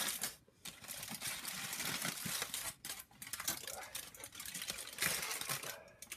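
Aluminium foil crinkling and rustling as hands unwrap it from a roast, irregular and continuous with a couple of brief pauses.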